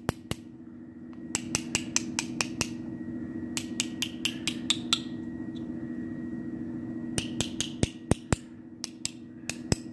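Small hammer tapping a dent ball down inside an annealed brass brace tube to round it out, in four quick runs of light metallic taps with short pauses between. A steady low hum sits underneath.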